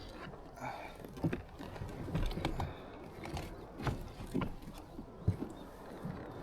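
Irregular small clicks and knocks from handling fishing tackle aboard a kayak, while the second rod is checked for a fish.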